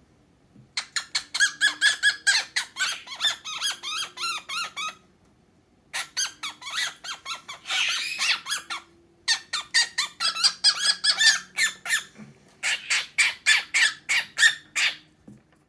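Cockatiel chattering in rapid runs of short, high calls, in four bursts with brief pauses between them. It is a jealous display, a pet cockatiel calling for its owner's attention.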